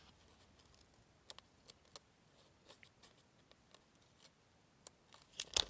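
Light scattered clicks of small fidget slider parts being handled, with a quicker run of louder clicks near the end.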